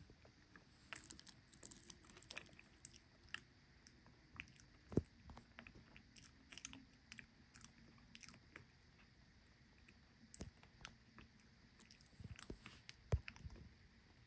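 Metal spoon stirring and scraping through crushed ice in a glass dish, giving scattered crunching and crackling ticks. Two louder single knocks, about five seconds in and near the end.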